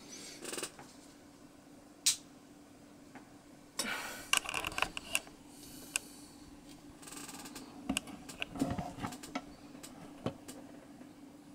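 Scattered faint clicks and rustles over a steady low hum.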